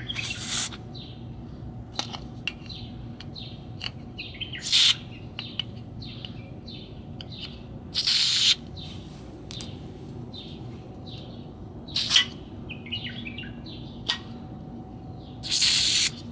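Aerosol penetrating oil (WD-40-type) sprayed in five short hissing bursts, a few seconds apart, onto brake-caliper slide pins and their rubber boots to flush off the dried old grease. Birds chirp throughout.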